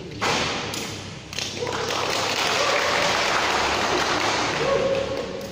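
Crowd applauding, growing louder about a second and a half in.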